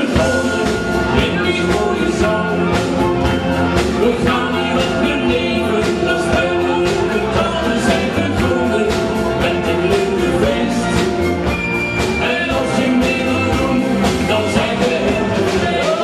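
Live wind band with saxophones, brass and a drum kit playing an upbeat tune with a steady beat.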